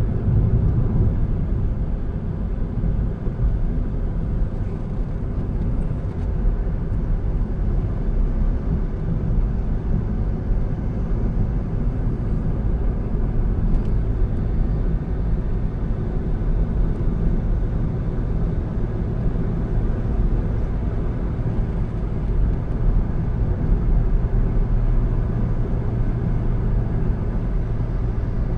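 Steady low rumble of a car on the road, engine and tyre noise heard from a vehicle-mounted camera.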